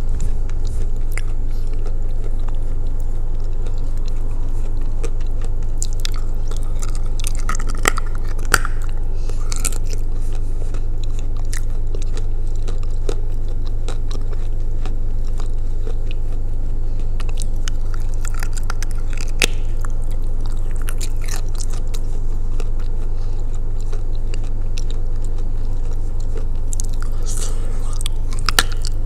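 Close-up chewing, biting and crunching of soaked edible clay (Uralskaya clay soaked in blue Uzbek clay), with wet mouth sounds. The crunches come in scattered clusters over a steady low hum.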